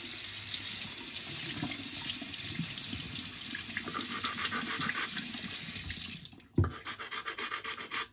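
A steady hiss for about six seconds that stops suddenly, then a knock and quick, regular back-and-forth scraping: a sharpening stone being rubbed against the chipped corner of a water stone to round it off.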